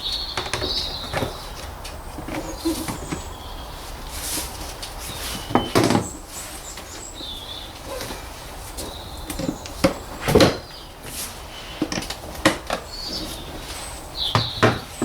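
Plastic knocks, clicks and rustling as a new panel air filter is worked into its plastic airbox housing, several sharp knocks scattered through, with birds chirping in the background.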